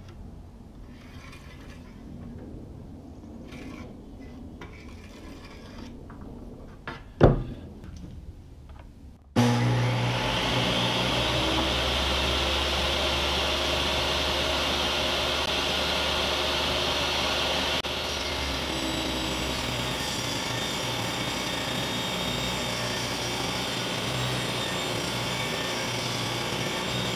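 A sharp knock, then about nine seconds in a jobsite table saw switches on and runs steadily, dropping a little in level about halfway through as a white board is fed along the spinning blade for a rip cut.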